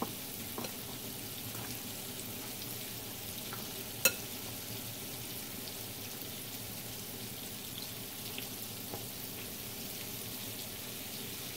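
Chicken drumsticks frying in oil in a skillet: a steady sizzle with light crackles. One sharp click about four seconds in.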